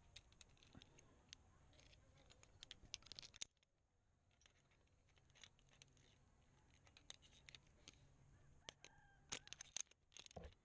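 Via ferrata lanyard carabiners clicking and clinking against the steel safety cable as they are moved and re-clipped: faint, scattered sharp metallic clicks, coming in two quick clusters, the second near the end the loudest.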